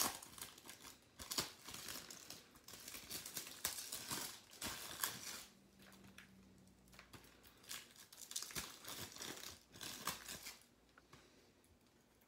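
Clear plastic shrink wrap on a Blu-ray case being picked at, torn and crinkled off by hand, in irregular crackling bursts that die down near the end.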